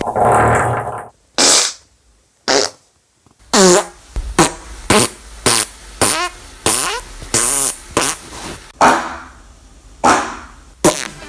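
Comedy fart sound effects: a string of about a dozen short, rasping blasts in quick succession, each sliding down in pitch, after two isolated blasts and a brief silence.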